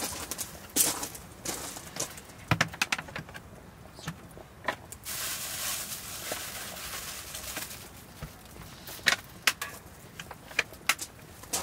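Firewood burning in a Winnerwell camping wood stove, crackling with sharp, irregular pops, and a stretch of hissing about five seconds in.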